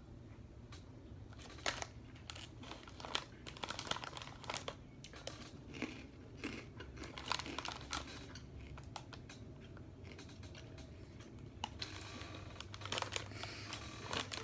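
A crinkly plastic snack bag being handled, with crunchy snacks being eaten close to the microphone: irregular crackles coming in clusters.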